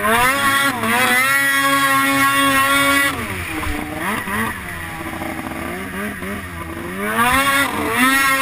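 Ski-Doo 600RS snowmobile's two-stroke engine revving hard at high throttle, dropping off about three seconds in, then revving up again near the end as the skis lift in a wheelie.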